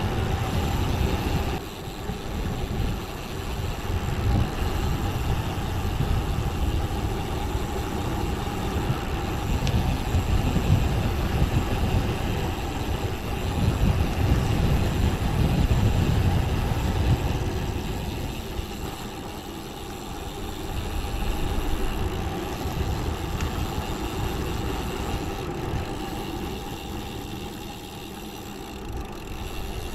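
Wind rush and tyre roar from a road bike coasting downhill at speed, a steady low rumble that swells louder midway and eases off twice later on.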